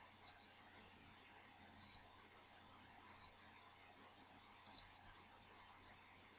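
Faint computer mouse button clicks: four quick pairs of clicks, spaced about one and a half seconds apart.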